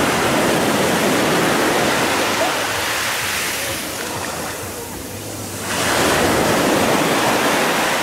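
Sea waves breaking and washing up the beach in two surges, the second rising suddenly about two thirds of the way in.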